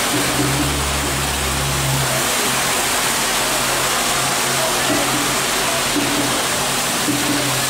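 Heavy rain falling steadily, a dense even hiss throughout. A low hum sits under it for the first two seconds or so.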